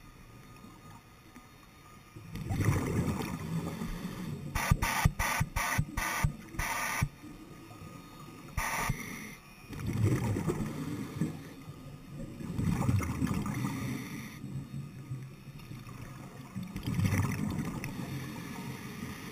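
Scuba diver breathing through a regulator underwater: bursts of exhaled bubbles every four to five seconds, with a short hiss of inhalation between them. A few seconds in there is a quick run of about six sharp clicks.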